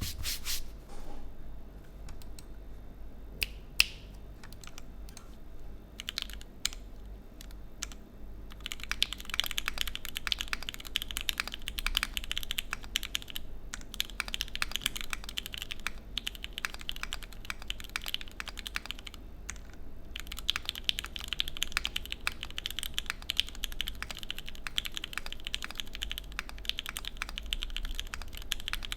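Typing on a Typ60 SL mechanical keyboard with stock Gateron Pro milky-top switches, a full carbon-fibre plate in an O-ring gasket mount, and PBT keycaps. It starts with scattered single keystrokes, then fast continuous typing from about nine seconds in, with a brief pause near twenty seconds.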